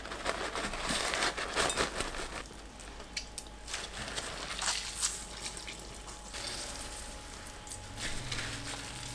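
Wet paper kitchen towel rustling and crinkling as a block of tofu is wrapped and squeezed by hand, with water dripping and trickling into a stainless steel bowl. The rustling is loudest in the first couple of seconds, then goes quieter.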